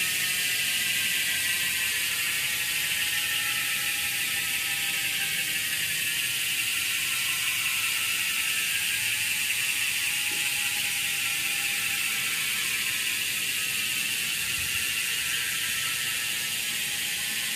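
Rear wheel of a road bike coasting on a repair stand, its freehub ratchet running continuously. The pitch falls slowly as the wheel winds down.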